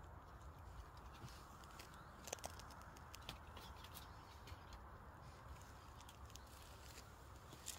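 Near silence, with a few faint scattered clicks and taps over a low hum.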